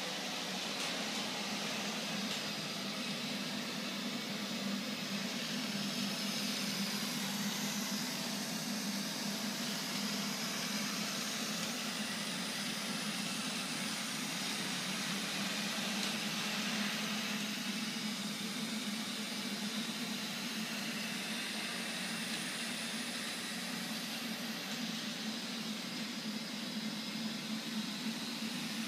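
Neato robot vacuum cleaner running: a steady motor hum with a hiss above it, swelling slightly at times as it moves and turns.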